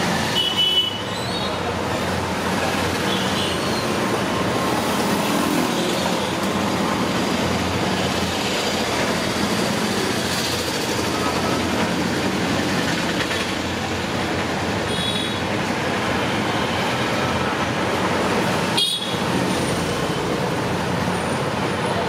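Steady road traffic noise with a few short horn toots.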